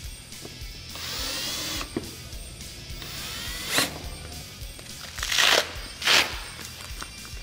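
A cordless drill runs briefly twice, about a second in and about three seconds in, its motor pitch rising as it drives the screws of snap buttons into a plastic door panel; the second run ends with a click. Near the end come two short, loud scuffs as the soft cab material is handled, over background guitar music.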